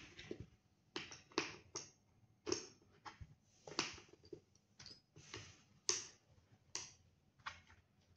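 Night-vision helmet mount parts clicking and clacking as they are fitted into the helmet's front shroud and handled: a string of sharp, irregular clicks, one or two a second.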